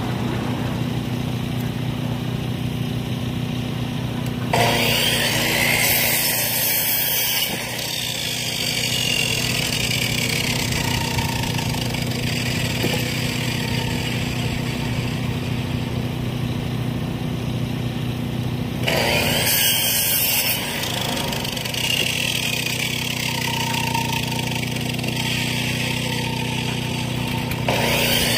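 Timbery M100 portable band sawmill: its engine running steadily, then about four seconds in the band blade bites into the timber and keeps cutting, a loud hiss of sawing over the engine hum.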